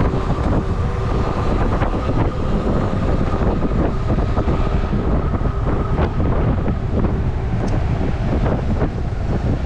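Wind buffeting the microphone and road noise from a riding electric bike, with a faint steady whine that fades after a few seconds and a few short knocks.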